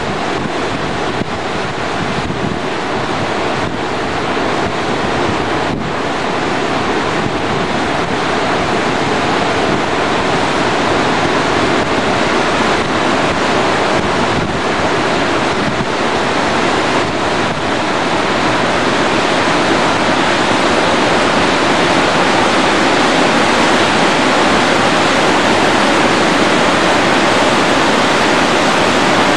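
Steady rushing of the fast-flowing Bhagirathi (the upper Ganges) in its gorge below, growing gradually louder.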